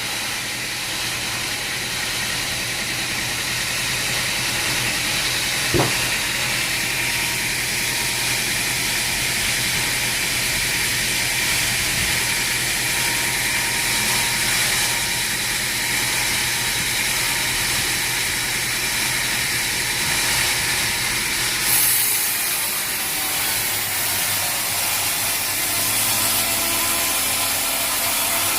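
Sawmill saw running steadily and cutting through a log, a continuous hissing machine noise. A single sharp knock comes about six seconds in, and the sound turns brighter and higher about two-thirds of the way through.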